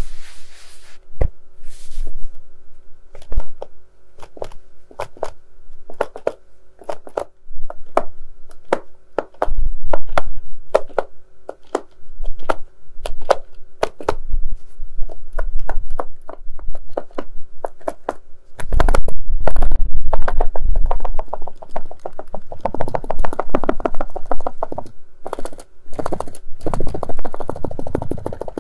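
Tapping on a case: a string of sharp, separate taps, a few a second, turning about two-thirds of the way through into a dense flurry of quick taps and scratching.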